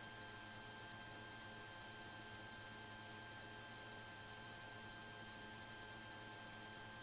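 Steady drone of a Cessna Turbo 182's engine and propeller at climb power, heard low and muffled, with a steady high-pitched electronic whine laid over it.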